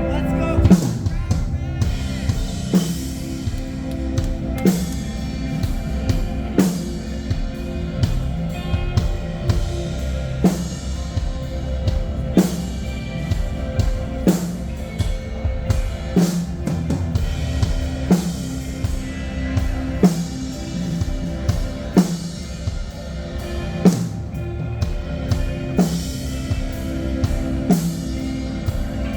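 Rock band playing a slow instrumental passage: sustained guitar chords over a drum kit, with a heavy drum hit about every two seconds.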